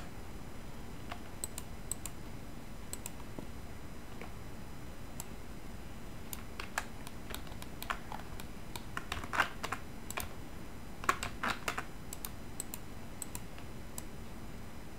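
Computer keyboard keys pressed now and then, single clicks with a couple of quick runs of keystrokes, over a faint low hum.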